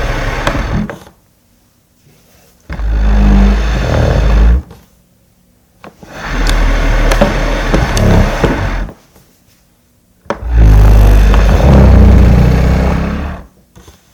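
A table dragged across a floor in grinding scrapes with a low, juddering rumble. One drag ends about a second in, then three more follow, each two to three seconds long, with short silent pauses between them.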